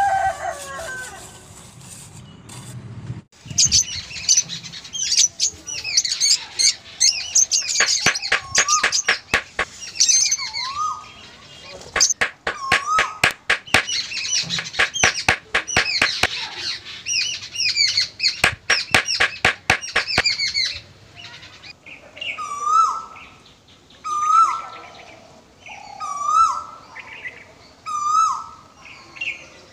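Birds chirping and twittering, with many rapid clicks or flutters mixed in through the first two-thirds. Near the end one bird repeats a short hooked call about every two seconds. The tail of a rooster's crow is heard at the very start.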